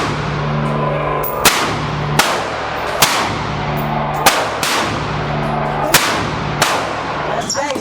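Gunshots at a shooting range: a firearm fired seven times in quick succession, roughly one shot a second, each a sharp crack with a short echo.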